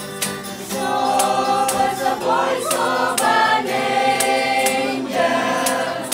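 A group of carolers, adults and children together, singing a Christmas carol from lyric sheets to a strummed acoustic guitar. The guitar strums alone at first, and the voices come in about a second in.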